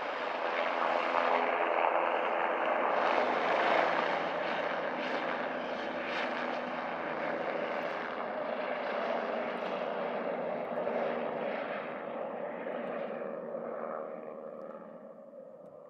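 Bell 407 helicopter departing: the whine of its Allison 250 turboshaft engine and the noise of its four-blade rotor as it lifts off and climbs away. It is loudest about four seconds in and fades over the last few seconds as it flies off.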